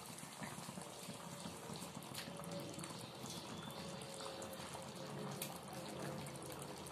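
Curry gravy simmering in a pan on a gas flame: soft, steady bubbling with scattered small pops.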